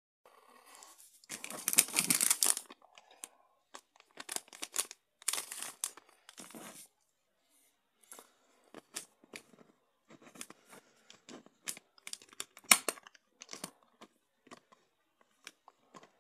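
A resealable plastic bag being pulled open and rustled, in several loud bursts during the first seven seconds, then a scattered run of small clicks and taps as the anti-fog inserts and a clear plastic case are handled.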